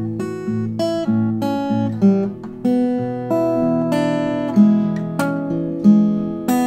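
Acoustic guitar playing a fingerpicked tune, with a steady run of bass notes under plucked treble notes. A louder chord is struck near the end and rings on.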